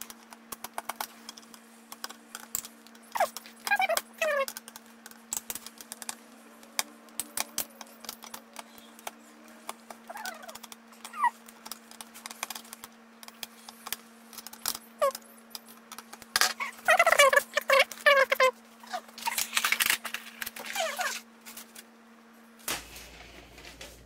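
Screwdriver driving the spring-loaded corner screws of an AMD Wraith Stealth stock cooler into a motherboard: a run of small metallic clicks and ticks, with several short squeaks that fall in pitch, the longest cluster a few seconds before the end.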